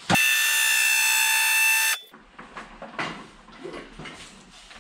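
A loud, steady buzzer tone sounds for about two seconds and cuts off suddenly, followed by faint clinks and handling noises.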